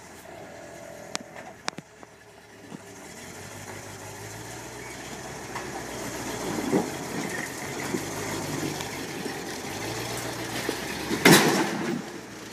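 Engine of an International Harvester pickup running at low speed as it crawls over a boulder, growing louder over several seconds. About eleven seconds in comes a short, loud crunch of tyres and chassis on rock as the truck comes off the boulder.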